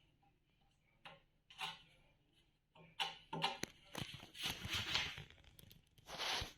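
Hands working on marble fireplace cladding: a few scattered knocks and clicks, then a busy stretch of knocking and scraping from about three seconds in, with a short rush of scraping noise near the end.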